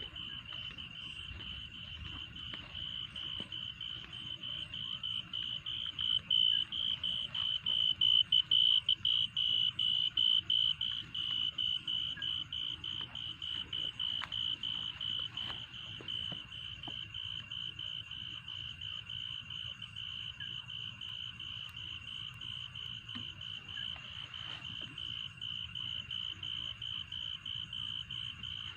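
A cricket chirping in a fast, even pulsing trill at one high pitch, swelling louder for a few seconds in the first half and then holding steady.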